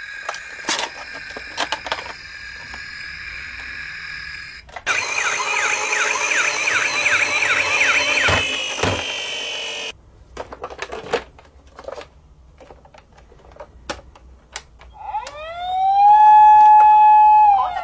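Electronic sirens of toy ambulances. A steady siren tone fades after a few seconds, then a fast-sweeping yelp siren sounds for about five seconds over a rushing whir as the toy runs across the floor. After clicks and knocks of plastic toys being handled, a second siren winds up and holds a loud steady wail near the end.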